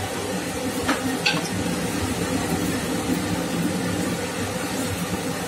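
Steady low hum and hiss, with two light clinks of a spatula against the curry pan about a second in.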